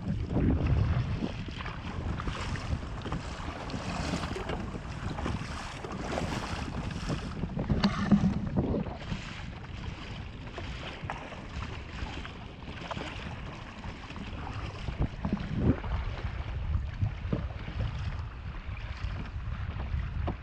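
Wind buffeting the microphone in low gusts, over repeated light splashes of double-bladed paddle strokes in the water beside a sit-on-top kayak.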